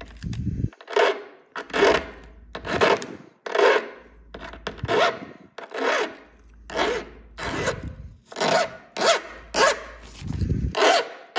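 Flat hand file stroked back and forth across a small hardened 4140 steel AK magazine catch, deburring its edges: about a dozen file strokes, roughly one a second.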